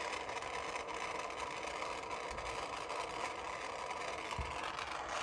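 Jeweller's soldering torch flame hissing steadily as it heats a silver ring setting to flow the solder paste.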